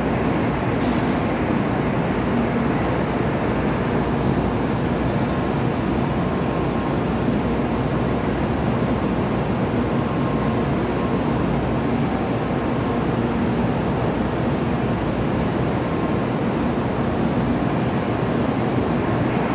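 Steady hum and rumble of Shinkansen trains standing at the platforms in an enclosed station hall, with no pass-by or departure. There is a brief high hiss about a second in.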